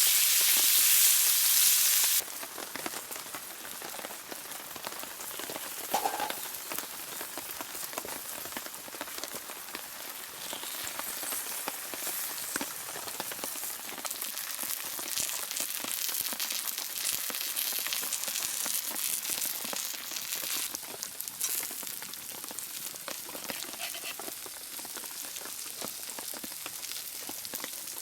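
Loud sizzling, like food searing over a fire, cuts off abruptly about two seconds in. Then comes steady rain, pattering with many scattered drips.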